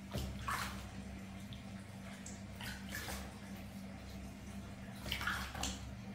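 Water splashing in short bursts, three times, as a hand scoops water from a plastic dipper and wets a baby monkey's head and fur.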